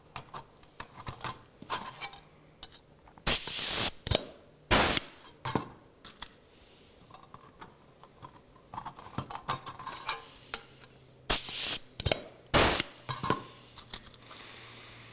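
Pneumatic rivet squeezer setting round-head rivets: each squeeze is a burst of air hiss and then a short exhaust puff, twice, about eight seconds apart. Light clicks of rivets and the tool being handled come in between.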